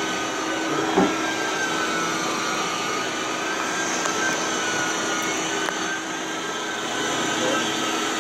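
A Rotovac DHX rotary carpet extractor runs steadily on carpet, its vacuum suction making a steady hum with a high whine that wavers slightly. There is a single knock about a second in.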